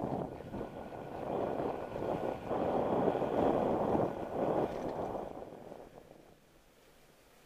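Bicycle rolling over rough dirt and grass, its tyres and frame rattling over the bumps. The noise is loudest about three to five seconds in and dies away after about six seconds.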